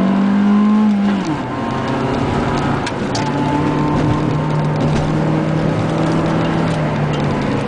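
Car engine heard from inside the cabin, held at higher revs, then dropping about a second in and running steadily at lower revs.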